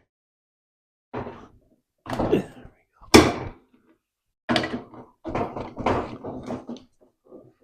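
A hammer pounding on a cut-free steel bracket welded into an ATV frame, trying to knock it loose. Irregular heavy blows with short metallic ringing, the loudest about three seconds in and a quicker run of hits from about five seconds on.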